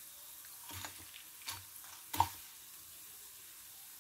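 Tempering of dried red chillies, cumin, mustard seeds and dals sizzling in shallow hot oil in a kadai as a steady hiss, frying on toward brown. A few sharp clicks of a spoon stirring come in the first half, the loudest just past two seconds in.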